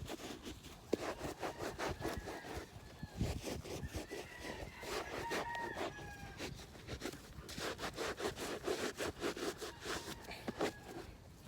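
A wet sponge scrubbing a leather sneaker in quick, repeated back-and-forth strokes. Faint drawn-out calls sound in the background, mostly in the middle.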